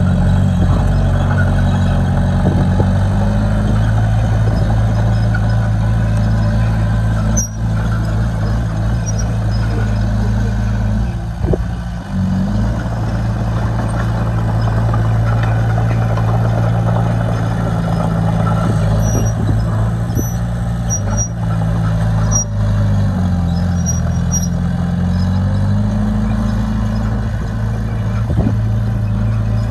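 Heavy-equipment diesel engine running steadily, its pitch sagging and recovering a few times as it takes load. A few faint high squeaks come in the second half.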